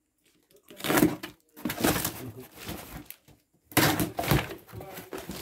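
Cardboard parcel box and crumpled packing paper being handled: rustling with knocks, in three bursts starting about a second in.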